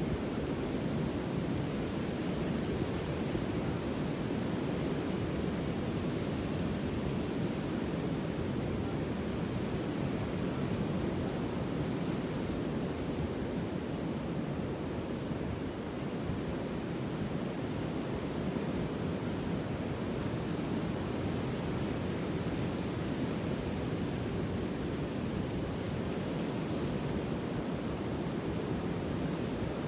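Sea waves washing on the shore, a steady low rushing with no distinct breaks or crashes.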